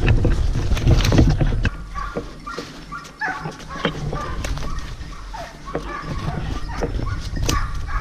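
Hunting dogs barking and yelping in short, irregular calls, mixed with snapping brush and footsteps. A heavy low rumble from the hunter's movement on the microphone covers the first couple of seconds.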